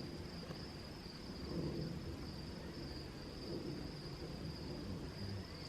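Crickets chirring in a steady, high, even tone, over a faint low rumble.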